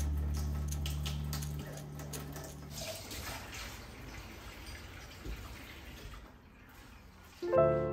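Water running from a kitchen tap into a stainless steel sink as wine glasses are rinsed. Background music fades out over the first couple of seconds, and a new piano piece starts near the end.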